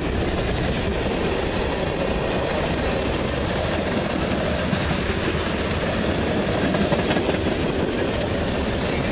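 CSX mixed freight train's cars rolling past close by: a steady rolling noise of steel wheels on the rail with no horn.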